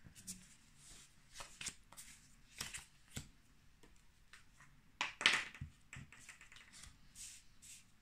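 Small squares of cardstock being set down and slid about on a cardboard mat by hand: scattered light taps and brief papery scrapes, the loudest about five seconds in.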